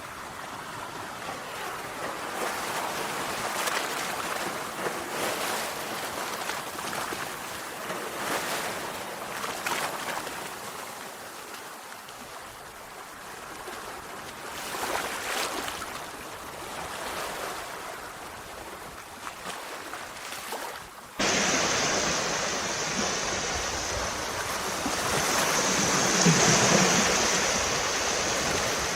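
Sea waves washing onto a shore, the surf swelling and falling every few seconds. About 21 seconds in it cuts suddenly to a louder, hissier stretch of surf.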